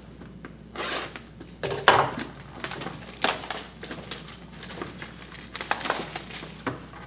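Foil wrapper of a Bowman Signatures football card pack crinkling and tearing as the pack is opened, in several short irregular bursts, the loudest about two seconds in.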